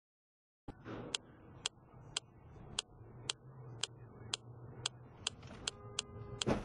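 Car turn-signal indicator clicking about twice a second over a low engine hum in the cabin, the clicks coming a little faster near the end. A short tone and a loud knock come just before the end.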